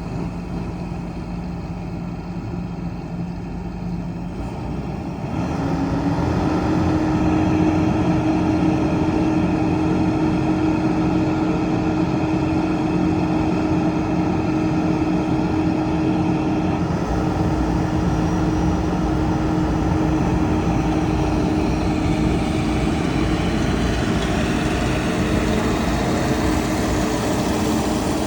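Rice combine harvester engine running steadily. About five seconds in it grows louder and a steady hum comes in, the sound of the machine taking on load as it unloads grain.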